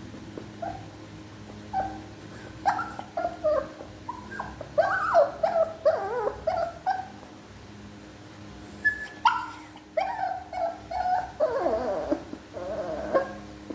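Small Shih Tzu–type dogs whining and yipping in short, high-pitched, wavering calls that come in two busy flurries, some sliding downward near the end.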